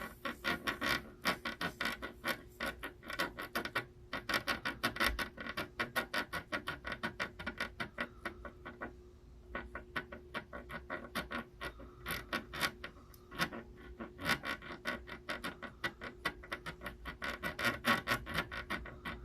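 Rapid scratching strokes of a small hand tool working on a PS5 circuit board, several strokes a second in bursts with short pauses, over a steady faint hum.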